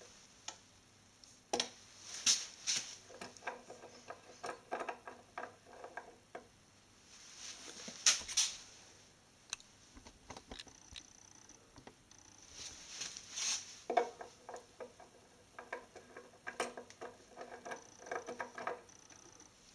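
Brass and glass parts of a small homemade engine clinking and tapping as they are handled by hand. The irregular clicks, some with a short ring, come in two spells.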